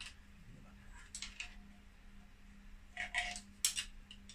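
Hand tools clinking and tapping against metal motorcycle parts while Allen bolts and a bracket are worked loose. There are a few separate sharp clicks, a cluster of them about three seconds in and the loudest just before the end, over a faint steady hum.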